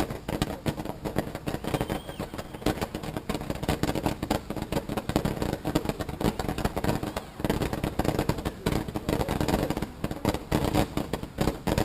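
Consumer fireworks going off in rapid succession: a continuous dense run of pops and crackles.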